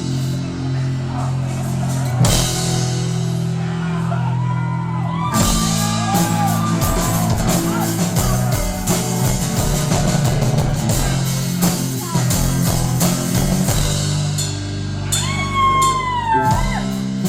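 Live rock band playing, with distorted electric guitars, bass and a drum kit holding low chords. Cymbal crashes land near the start, about two seconds in and about five seconds in.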